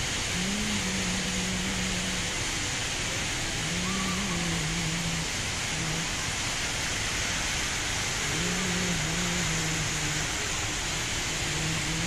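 Steady rushing of the Rain Vortex, the tall indoor waterfall of Jewel Changi Airport, pouring into its pool and filling the atrium with an even wash of water noise. Faint voices rise over it four times.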